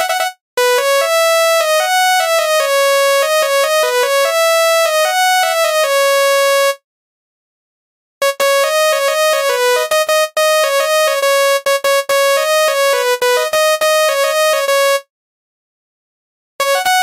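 Telolet basuri bus horn playing a tune as a fast run of clean, buzzy electronic notes. It plays two melodic phrases with a pause of about a second and a half in the middle, stops about 15 seconds in, and starts again near the end.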